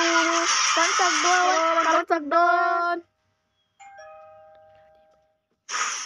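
Two-note doorbell chime, a ding-dong that rings out and fades over about a second and a half. Before it, for the first three seconds, a cartoon crowd clamours with a voice shouting over it, then cuts off.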